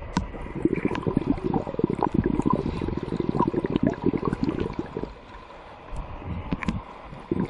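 A child swimming, heard underwater: muffled churning and bubbling from kicks and strokes, dense for about five seconds, then easing off with a few scattered bumps near the end.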